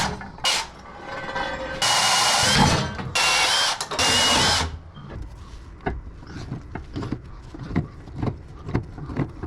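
Portable band saw motor running in several short bursts, each about half a second to a second long, with a wavering whine, over the first four and a half seconds. After that come irregular clanks and knocks of metal being handled.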